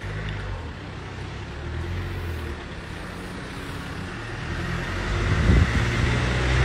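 Street traffic: a steady low rumble of road vehicles, growing louder over the last couple of seconds, with a few low thumps near the end.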